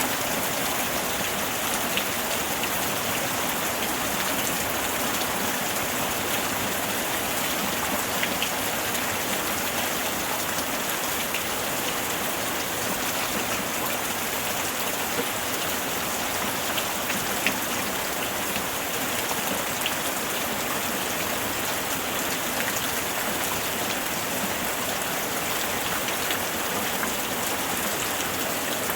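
Heavy rain falling on tree foliage, a steady dense hiss with scattered louder drops.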